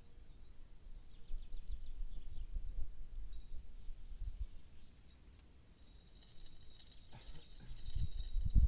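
Outdoor ambience: birds chirping in short high notes, then a steady high-pitched insect trill from about six seconds in, over a low rumble. A few low thumps come near the end.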